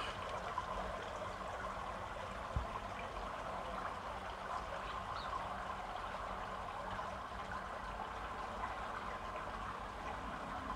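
Steady rush of running water, with a single short thump about two and a half seconds in.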